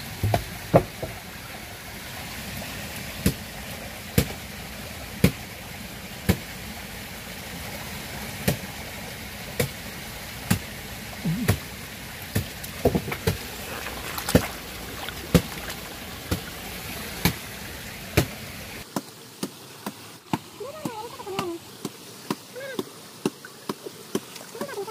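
Steady rush of river water, with sharp knocks or chops about once a second. Near the end the sound changes abruptly and gets quieter, with a few faint gliding tones.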